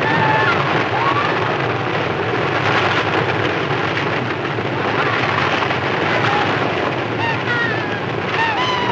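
Early sound-film soundtrack of a land rush: a dense, steady rumble of many galloping horses and wagons, with short shouts and cries rising over it about a second in and again, more often, near the end.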